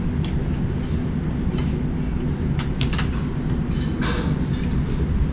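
Cutlery clinking several times against plates and bowls over a steady low rumble.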